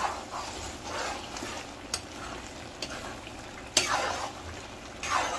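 Chicken curry being stirred in a kadhai with a ladle, over a steady sizzle from the gravy. The ladle clicks and scrapes against the pan a few times, most sharply about two seconds and four seconds in.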